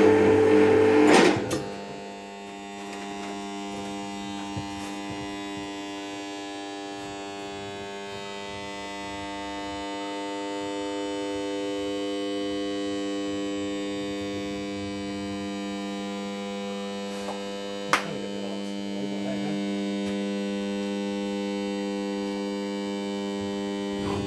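Electric motor humming steadily after a button is pushed, a stack of even tones that is louder for the first second or so. A single sharp click comes about 18 seconds in.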